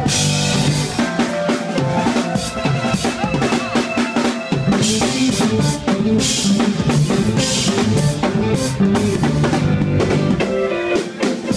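Live funk band playing, the drum kit prominent with kick, snare and rimshot hits under electric guitars and bass.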